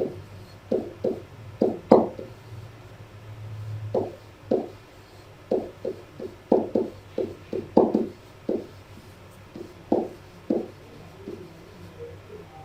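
An irregular series of short, dull taps and knocks, about twenty over a dozen seconds, with a faint low hum for a couple of seconds near the start.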